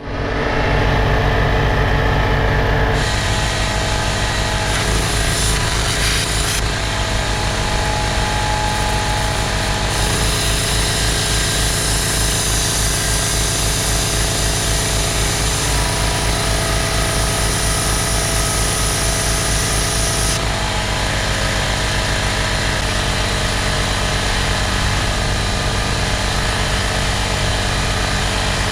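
Metalworking power tool running steadily with a fast, even pulsing, its sound changing abruptly a few times as the work switches between cuts.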